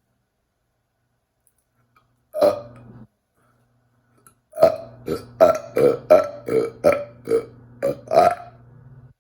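A person burping: one short, loud burp about two seconds in, then a long burp from about four and a half seconds in that pulses roughly twice a second over a steady low drone.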